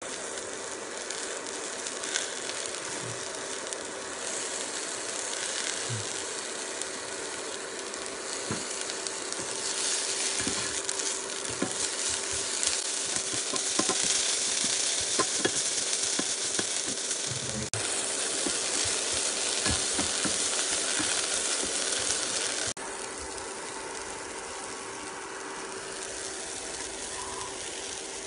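Shredded banana flower frying in oil in a non-stick pan: a steady sizzle with scattered clicks of a spoon stirring against the pan. The sizzle grows louder in the middle and drops suddenly about three-quarters of the way through.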